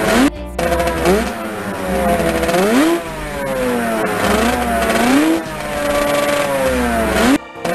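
Motorcycle engine revving up and dropping back again and again, a recorded sound effect laid over the picture, with a short break about a quarter of a second in and a sudden cut-off near the end.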